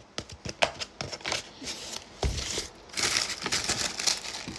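A few scattered small clicks, then from about three seconds in a steady crinkling of paper takeout food packaging being handled.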